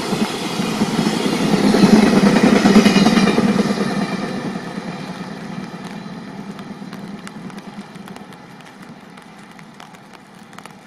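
Container freight train's wagons rushing past on the rails, loudest about two to three seconds in, then the rumble fading steadily as the train draws away.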